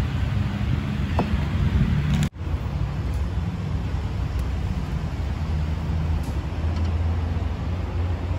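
A vehicle engine idling: a steady low rumble that drops out for an instant about two seconds in, with a small tick shortly before.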